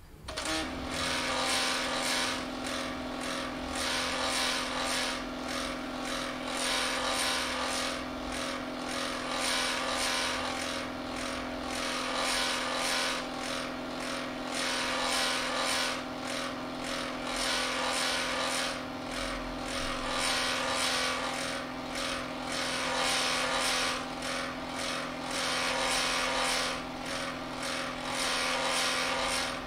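Nikon Super Coolscan 5000 ED slide scanner with SF-210 autofeeder scanning a slide at 4000 dpi. Its motor starts suddenly and then whirs as a steady hum with a regular pulsing over it.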